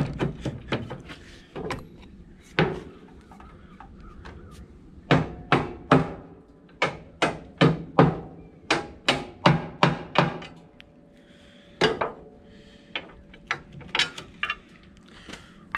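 Hammer blows on a rusted steel frame rail, knocking it loose from a truck chassis: a quick cluster of strikes at the start, then a steady run of hard metal-on-metal hits about two to three a second through the middle, and a few scattered blows near the end.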